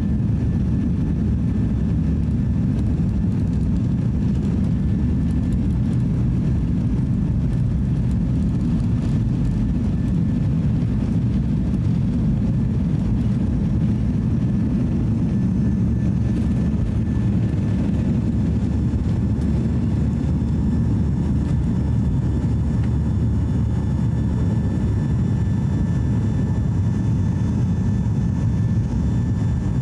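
Cabin noise of a Boeing 737-800 on its takeoff roll and climb-out: the CFM56 engines running at takeoff power, a steady low rumble with a faint high whine from the fans.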